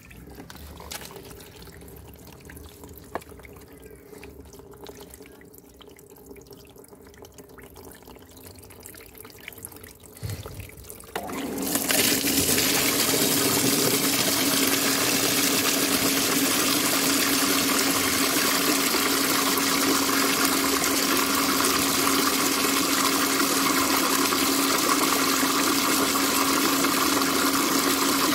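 Backwash water from a Bestway sand filter gushing out of a hose and splashing into a plastic basin. It starts suddenly about a third of the way in and then runs loud and steady, with a steady hum underneath. The water comes out murky as the backwash flushes dirt out of the filter sand.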